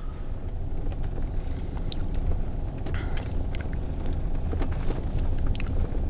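A vehicle moving slowly along a village road, heard from on board: a steady low rumble of engine and tyres, with scattered small clicks and rattles.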